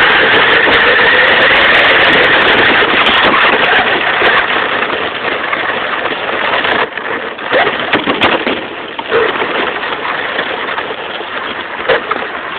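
Radio-controlled car running over rough ground, heard from a camera riding on it: a loud, steady motor whine mixed with rattle for the first several seconds. From about seven seconds in it breaks into uneven knocks and crunches as the car goes over stones.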